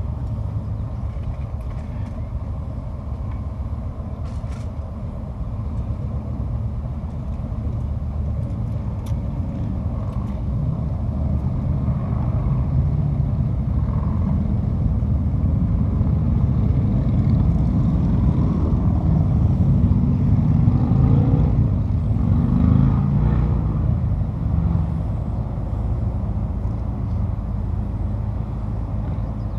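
Vehicle engines running with a steady low rumble. It grows louder through the middle, then eases back.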